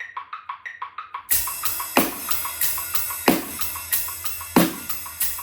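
A metronome ticks fast subdivisions with an accented click on each beat. About a second in, a drum kit comes in on top: eighth notes on the ride cymbal, kick drum, and heavy strikes on every other beat.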